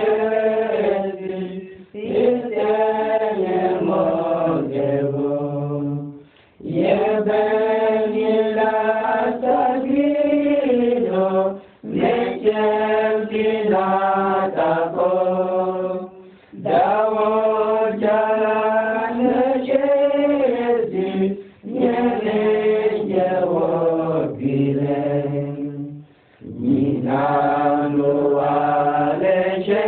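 Unaccompanied group singing: several voices in harmony chanting a slow religious song in phrases about four to five seconds long, with short breaks between them.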